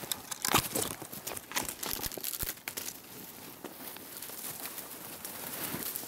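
Crackling, snapping and rustling of branches and undergrowth being pushed through on foot. The crackles are densest in the first three seconds, then give way to a softer steady rustle.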